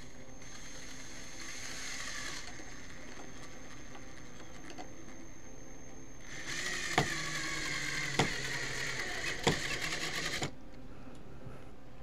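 Cordless drill driving a screw into a wooden ceiling joist. The motor whines for about two seconds, stops, then runs again for about four seconds, with a few sharp clicks in the second run.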